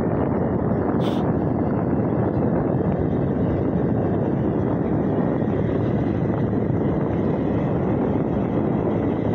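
Steady rushing noise of a motorcycle on the move: wind on the microphone mixed with the engine and tyres, with one short click about a second in.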